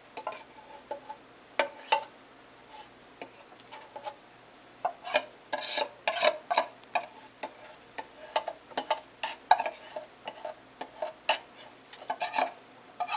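A metal spoon scraping and clinking inside an open tin of condensed milk, scooping out the last of it. Short irregular clinks and scrapes come sparsely at first and grow much busier after about five seconds.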